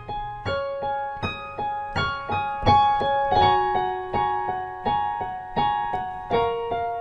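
Background piano music: a steady stream of single notes, roughly three a second, ringing over held lower notes.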